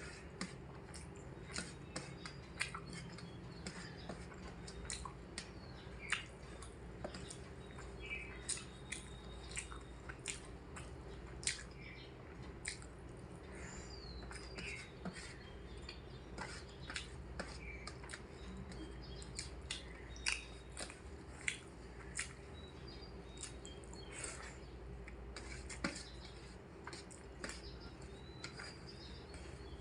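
Close-up eating sounds of someone chewing a rice meal: frequent short clicks and mouth noises. Faint bird chirps sound in the background over a steady low hum.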